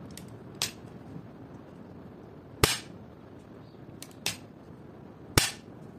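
Pars Fanal PFR-64 four-pole RCCB being switched on and tripped with its test button: a handful of sharp mechanical clicks, the two loudest snaps about two and a half and five and a half seconds in. Tripping on test is the sign that the residual-current device is healthy.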